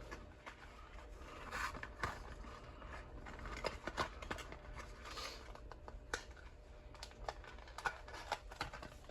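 Faint handling noises of ammunition boxes and cartridges: scattered small clicks and a few short scrapes.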